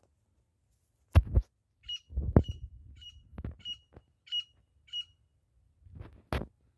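Grey francolin (desi teetar) calling: six short, high, identical notes repeated about every 0.6 s. Several loud knocks from handling the phone, the loudest sounds, come about a second in, in the middle and near the end.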